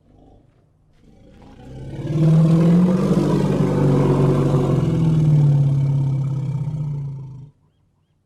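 Elephant giving one long, low-pitched call that swells over about two seconds, holds for about five, and cuts off abruptly near the end.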